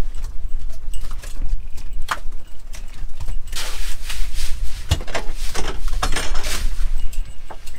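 Knocks, clatter and rustling of fish and gear being handled on a fishing boat's deck, over a steady low rumble, with a run of loud swishes in the middle.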